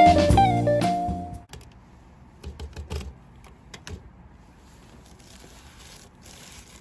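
Acoustic guitar music ends about a second and a half in. Then come light metallic clicks and rattles of a key in a metal community mailbox lock and its small door being opened, with a few more clicks as a package is reached for.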